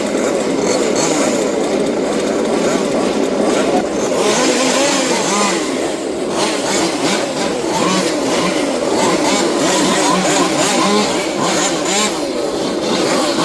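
Several 1/5-scale two-stroke petrol RC off-road cars racing together, their small engines revving up and down over one another in a continuous buzz.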